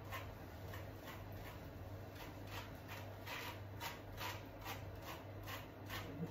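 Hand scrubbing lather through a wet puppy's matted coat, working the product into tight knots to loosen them. Regular wet rubbing strokes, about three a second.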